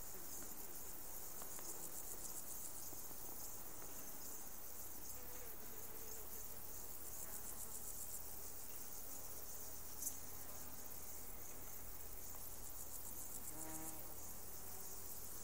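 Insects stridulating in the surrounding vegetation: a steady, high, rapidly pulsing chirr. A brief low buzz comes near the end.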